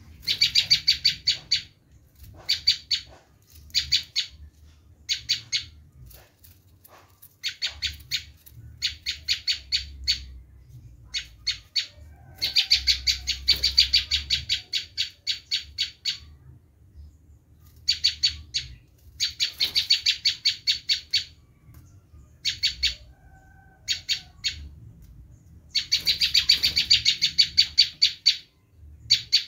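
Prenjak lumut giving its harsh scolding 'screaming' call: rapid chattering rattles of many quick notes, repeated in bursts of half a second to a couple of seconds with short pauses between. Used as a lure call to draw in wild prenjak.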